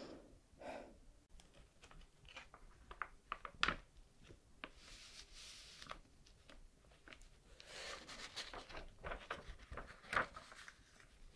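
Hands handling a glossy paper questionnaire booklet: pages opened, slid over and turned, with soft crinkles and light taps. There are two longer stretches of sliding paper, about five seconds in and again from about eight seconds.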